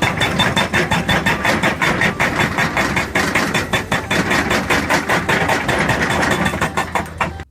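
Rock-breaker excavator hammering over its engine: a fast, steady train of knocks, about eight a second, that cuts off suddenly near the end.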